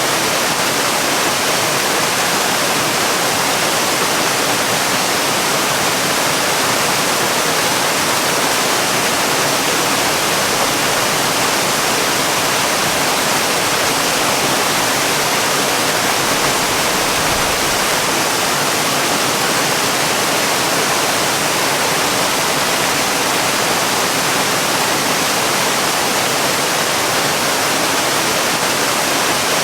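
Waterfall: water falling in a steady, unbroken rush with an even hiss.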